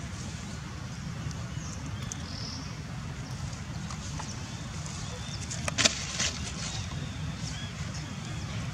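Outdoor ambience: a steady low rumble of wind on the microphone with faint high chirps, broken about six seconds in by a sharp crackle, the loudest sound.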